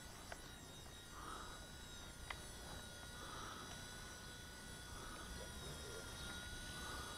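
Blade mCPX micro RC helicopter hovering low, its electric motor and small rotors giving a faint, steady high-pitched whine.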